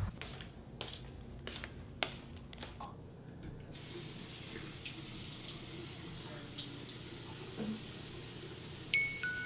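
Bathroom sink faucet running, water splashing as hands are rinsed under the stream; the steady flow starts about four seconds in, after a few sharp knocks and clicks. Near the end a short run of falling tones sounds.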